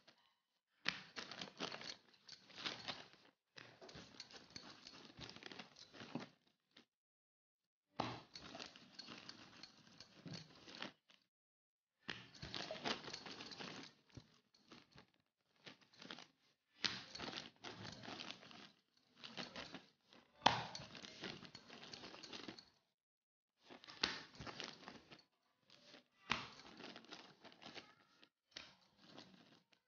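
Rolling pin being worked back and forth over a stiff sheet of mathri dough, a soft scraping rustle in bouts of one to three seconds with short pauses between.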